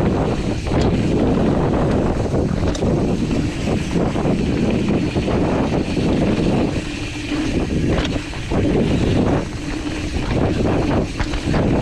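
Wind buffeting the microphone and mountain bike tyres rumbling over a dirt trail during a fast descent, a rough steady rush that dips and surges with the terrain. A few sharp clicks come through, one about a second in and another near eight seconds.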